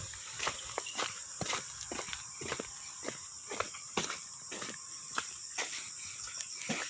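Steady high-pitched chirring of crickets, with a run of short taps or steps, about two or three a second.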